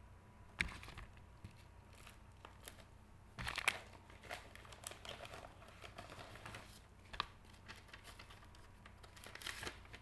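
Crinkling and rustling of plastic card holders and packaging being handled, with scattered sharp clicks; the loudest is a short burst of clicks about three and a half seconds in.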